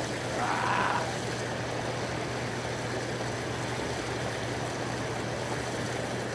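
Hot tub jets running: a steady rush of churning water over a constant low hum from the jet pump motor, with a short higher-pitched sound just under a second in.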